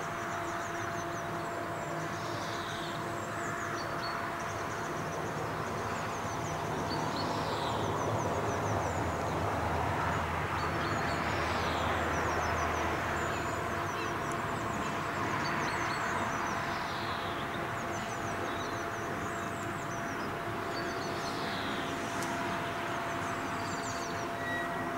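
Birds calling over and over in high chirps and short down-slurred calls, over a steady mechanical hum with a held tone that swells a little in the low end partway through.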